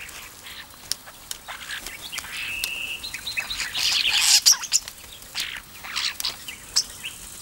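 Starlings calling: a jumble of short chirps, clicks and whistles, with one held whistle about two and a half seconds in, busiest and loudest around the middle.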